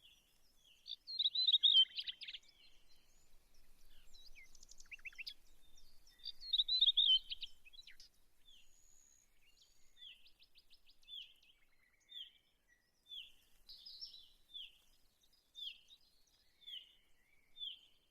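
Small birds singing and chirping: a louder warbling song phrase about a second in and again around six seconds in, with short down-slurred chirps repeating roughly once a second through the rest.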